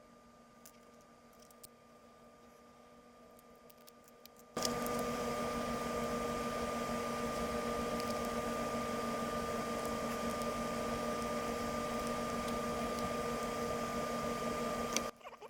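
A small electric motor running steadily with a hum and hiss, switched on abruptly about four and a half seconds in and cut off suddenly near the end.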